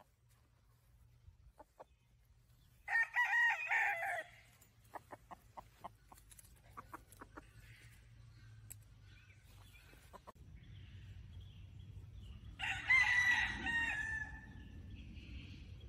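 Gamefowl roosters crowing twice, one crow about three seconds in and another near the end, the second trailing off in a long drawn-out falling note. Between the crows there is a string of short clucks.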